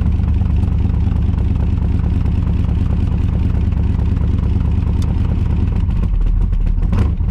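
1982 Chevrolet Camaro engine idling, heard from the driver's seat. About six seconds in the idle drops deeper as the car is put in gear to load the engine against dieseling at shut-off, with a click near the end.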